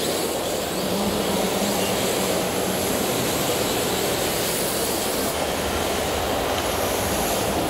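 Steady, even din of a busy exhibition hall, with electric RC drift cars running and sliding on the smooth track.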